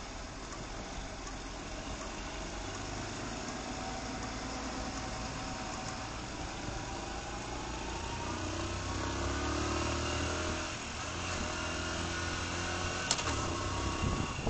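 Motorcycle engine pulling away from low speed: its pitch climbs steadily, drops once near the middle at a gear change, then rises again. A single sharp click comes near the end.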